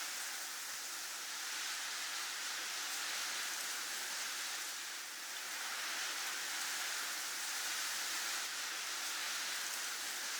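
Snowstorm ambience: an even, steady hiss of wind and blowing snow that eases slightly about halfway through and then swells again.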